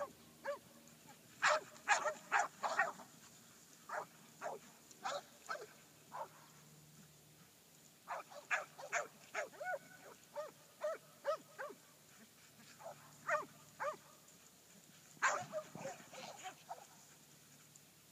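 Cur stock dogs barking at a bunched herd of cattle, short sharp barks coming in clusters of several at a time with brief pauses between.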